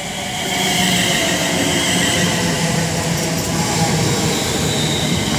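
London Northwestern Railway Class 350 Desiro electric multiple unit pulling into the platform close by. Several steady electric whining tones sit over the noise of wheels on rail, growing louder in the first second and then holding.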